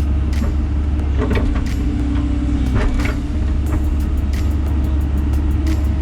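Diesel engine of heavy earthmoving equipment running steadily under load, with sharp metallic clanks scattered through it and coming several a second in the second half.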